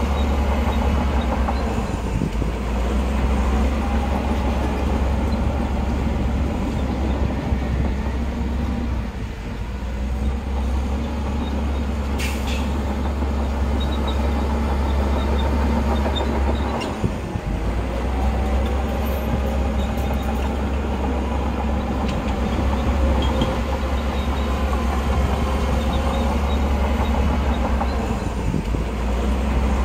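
Heavy diesel earthmoving machinery running steadily: a loud, deep engine drone with a fainter pitch wavering above it, dipping briefly a little past halfway.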